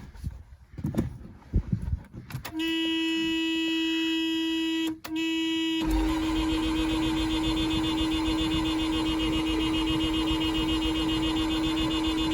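A few knocks, then a steady, loud horn-like electric tone from the car starts about two and a half seconds in. It breaks off for a moment, then sounds on with a low rumbling noise underneath from about six seconds in.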